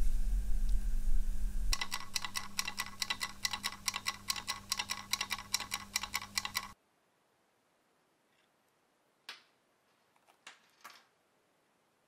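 Dial kitchen timer ticking fast and evenly, about five ticks a second, over a steady low electrical hum. Both cut off suddenly a little past halfway, leaving near silence broken by a few faint clicks near the end.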